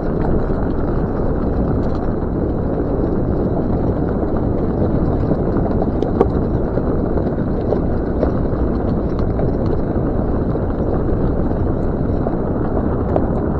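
Land Rover Discovery 2 driving along a dirt forest trail: a steady rumble of engine and tyres on the rough track, with scattered small clicks and one sharper knock about six seconds in.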